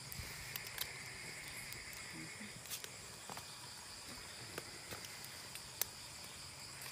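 A steady chorus of night insects, a continuous high-pitched buzz and trill, with scattered sharp clicks and taps over it, one louder a little before the end.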